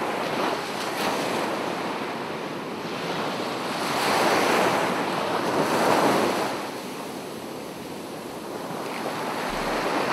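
Rushing ambient noise that swells to two surges in the middle and then ebbs again.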